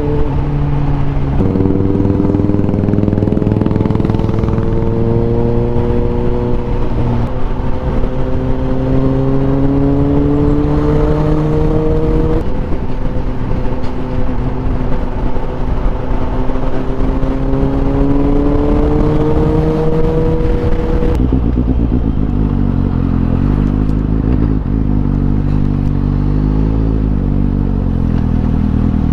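Suzuki GSX-S750's inline-four engine through a MIVV Suono slip-on exhaust, under way: the note climbs slowly and drops back at each upshift, four times, then runs lower and less steady for the last several seconds.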